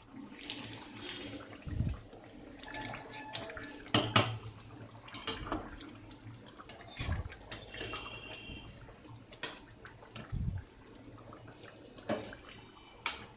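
Metal spatula stirring a watery chicken and potato curry in a metal kadai: scraping and sharp, irregular clicks and knocks of metal on the pan, with the gravy sloshing.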